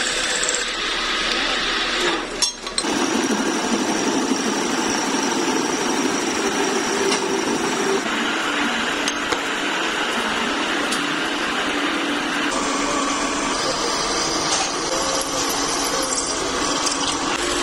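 Milling machine cutting steel under coolant, a steady grinding run. It dips briefly about two and a half seconds in and shifts in tone twice later on.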